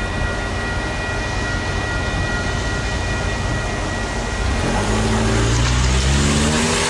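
VIA Rail F40PH diesel locomotive passing a level crossing, with the crossing bell's steady tones ringing at first. About four and a half seconds in, the locomotive's engine comes up loud and its pitch dips as it goes by, and wheel-on-rail noise builds near the end. No horn is blown.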